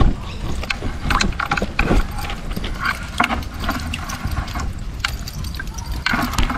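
Handling noise from a green mesh collapsible fish bait trap: irregular rustling, crackles and sharp clicks as the net and its frame are moved about, over a low rumble.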